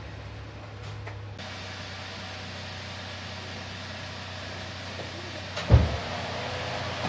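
Steady low hum under background noise while parts of a Yamaha Serow motorcycle are handled by hand, with one heavy thump about five and a half seconds in.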